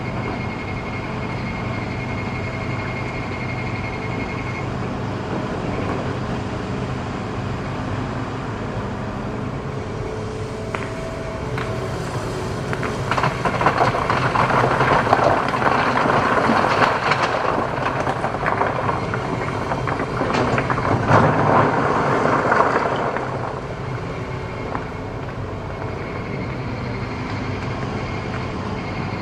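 Hitachi ZX210 excavator's diesel engine running steadily. About halfway in comes a louder stretch of rough grinding and scraping with clattering knocks, lasting roughly ten seconds, as the bucket digs through hard rock.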